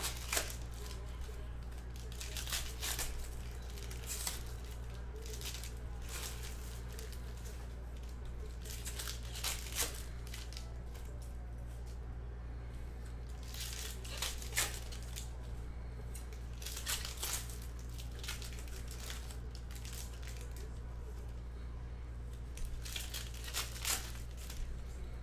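Foil wrappers of Panini Mosaic football card packs being torn open and crinkled by hand, in short crackly bursts every few seconds, over a steady low hum.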